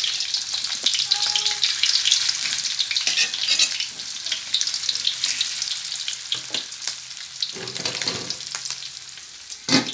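Raw ground-meat patties sizzling in shallow hot oil in a wok, a steady dense crackle, with one sharp knock near the end.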